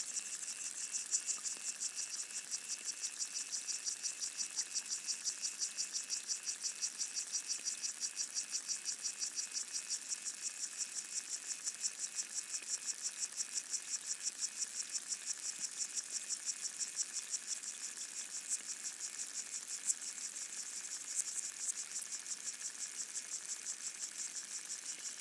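Underwater chorus of pygmy water boatmen (Micronecta) stridulating, heard through a hydrophone in a freshwater pond: a steady, rapid pulsing chirr repeating several times a second, with a few sharper ticks near the end.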